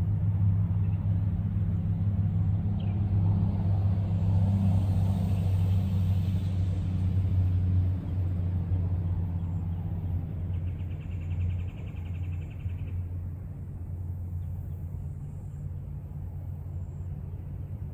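Steady low motor rumble that eases off after about eight seconds, with a short, fast buzzing a little past the middle.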